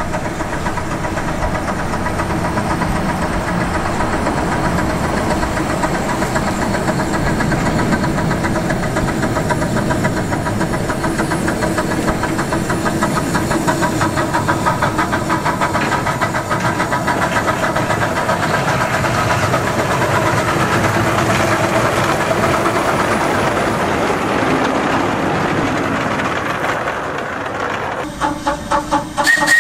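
One-foot gauge 0-4-2 tank steam locomotive running, a steady hiss of steam over mechanical running noise. Just before the end a steam whistle starts to blow, one steady note.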